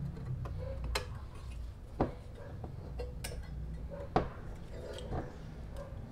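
Small metal pick clicking and scraping against a model car body as the clear plastic windshield is pried loose, with sharp clicks about once a second, the loudest about four seconds in.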